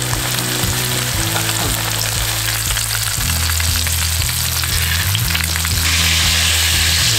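Breaded fish fillets frying in hot oil in a cast iron pan: a steady sizzle peppered with small crackles and pops. The sizzle grows louder and brighter about six seconds in.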